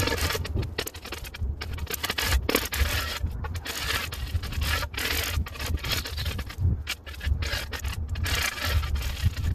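Shovel blade scraping and chopping into hard-packed snow: a steady run of rough scrapes broken by short pauses.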